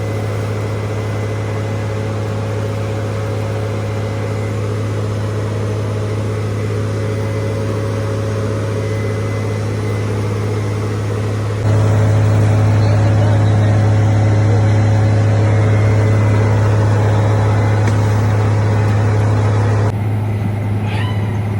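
Rice combine's engine running steadily, a deep droning hum with steady overtones. It gets suddenly louder about halfway through and drops back shortly before the end.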